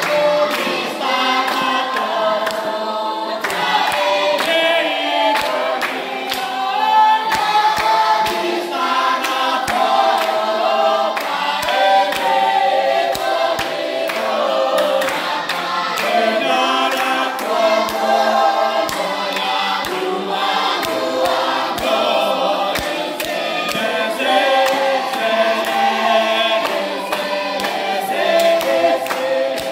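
A group of children singing a song together without instruments, with hand claps at intervals.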